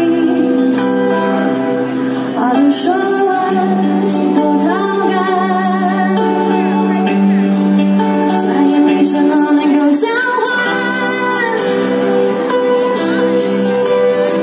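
A live band playing through a PA: acoustic and electric guitars with drums, holding long, bending melodic notes.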